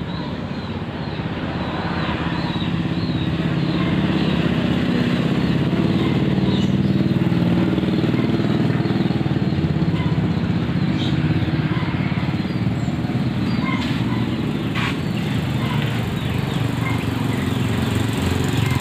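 Engine-driven rice threshing machine running, a steady engine drone with machine noise that grows louder over the first few seconds and then holds.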